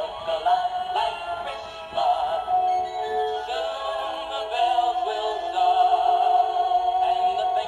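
Sound n Light animated teddy-bear-in-a-present toy playing its song, an electronic singing voice with backing music. It comes through the toy's small speaker, so it sounds thin with almost no bass.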